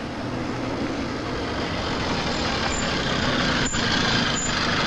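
Small two-stroke moped engine running steadily as the moped rides along a street, with road noise; a few faint clicks in the second half.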